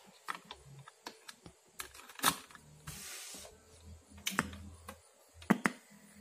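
Sharp plastic clicks of a mains plug being pushed into a power strip and the front power button of a Panasonic 14-inch CRT television being pressed, with a brief hiss about three seconds in.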